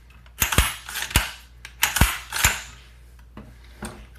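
SKS rifle's bolt being racked by hand, pulled back and let go to slam home, in a function test of the empty, reassembled rifle. About five sharp metallic clacks come in the first two and a half seconds, then a faint click near the end.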